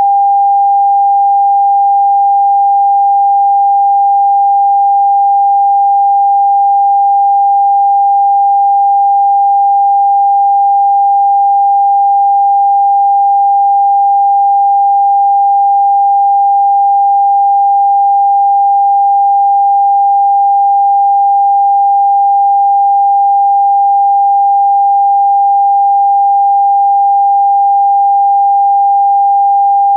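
A steady electronic sine tone, a single pure pitch a little below 1,000 Hz, held at a constant level without any change: a Rife frequency played for frequency therapy.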